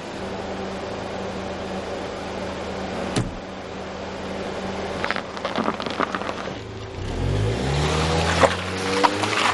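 Car engine running steadily, then revving with a rising pitch from about seven seconds in as the car pulls away.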